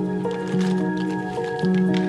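Background music: a melody of held notes over a steady low note, the notes changing every half second or so.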